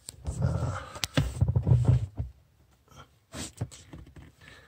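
A person breathing hard and straining while reaching up under a car dashboard, with rustling and knocks from handling against the wiring and a sharp click about a second in.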